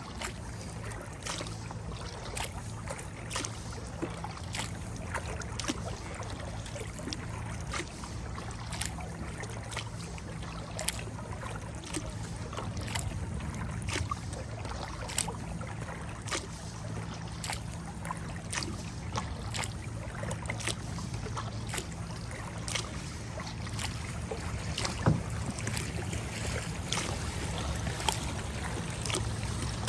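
Kayak being paddled: a steady rhythm of paddle strokes, a short splash or knock about every second, over a constant low hum. One stroke about 25 seconds in is louder than the rest.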